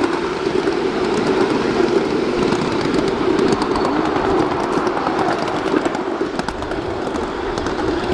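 Ride-on 7½-inch-gauge miniature train rolling along the track: a steady rumble of wheels on rail with many small, irregular clicks.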